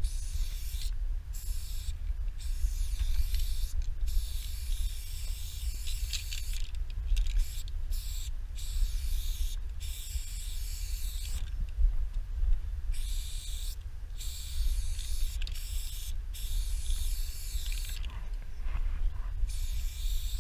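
Aerosol spray paint can hissing in a string of bursts, mostly a second or more long, cut by short breaks between strokes.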